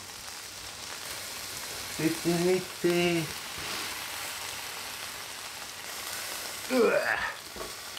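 Pork spare ribs sizzling steadily on the hot grill plate of an air fryer, an even frying hiss. A man's brief wordless vocal sounds come through about two to three seconds in and again near the end.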